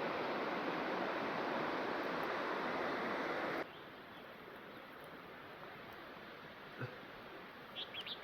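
Steady rain hiss for about three and a half seconds, then it cuts off suddenly to a much quieter background hiss. A few faint chirps come near the end.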